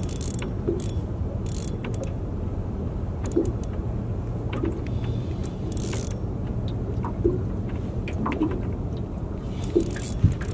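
Spinning reel being wound in against a hooked trevally, its gears and mechanism clicking lightly, over a steady low rumble.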